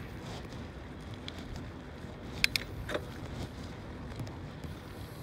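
Steady low rumble of wind and road noise from an e-bike riding along pavement. A few sharp clicks or rattles come about two and a half seconds in and again near three seconds.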